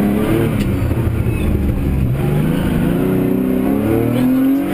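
Rally car's engine heard from inside the cabin, revving hard: the pitch falls and rises in the first two seconds, then climbs steadily before dropping sharply at the end.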